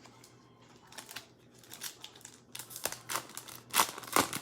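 Plastic foil trading-card pack wrapper being torn open and crinkled by hand: irregular crackling strokes that start about a second in and grow denser and louder toward the end.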